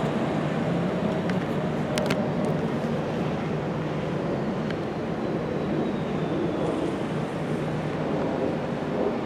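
Steady city street traffic: the low rumble of passing vehicles, with a couple of sharp clicks about two seconds in and a faint falling whine through the middle.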